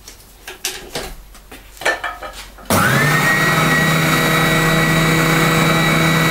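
A few light knocks, then nearly three seconds in a Triton oscillating spindle sander is switched on: its motor whine rises quickly and then runs steadily as the sanding drum spins and oscillates.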